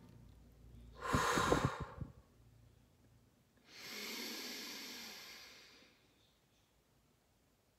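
A person takes a quick, strong breath in through the nose lasting about a second. After a pause comes a long, slow exhale through the mouth of about two seconds that fades away: one cleansing breath.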